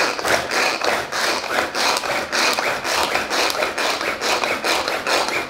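Knife chopping an onion on a cutting board: a quick, even run of strokes, about three or four a second.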